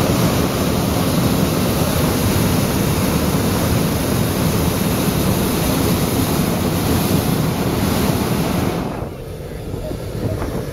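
Hot-air balloon's propane burner firing in one long, loud, steady blast that cuts off about nine seconds in.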